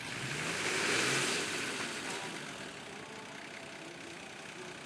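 Four-wheel-drive competition vehicle's engine revving up, loudest about a second in, then easing back to a steady run.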